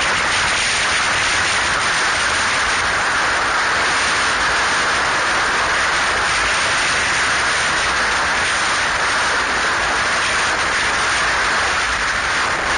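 Steady wind rush over the microphone of a camera riding on a moving motorcycle: an even hiss with no engine note standing out.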